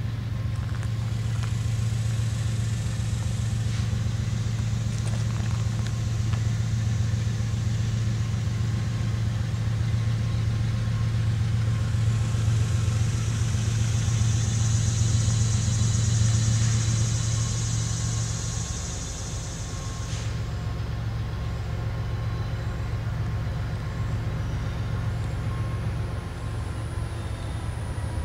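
Kansas City Southern diesel locomotives running steadily as they approach at the head of a container train, a low engine rumble throughout. A high buzz swells in the middle and cuts off suddenly about twenty seconds in.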